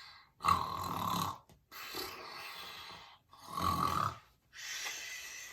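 Snoring acted out for the sleeping bear in the story: two loud snores on the in-breath, each followed by a longer, softer breath out.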